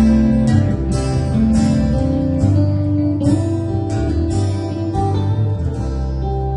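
Acoustic guitar strumming chords in a steady rhythm, about two strokes a second, in an instrumental stretch of a song with no singing.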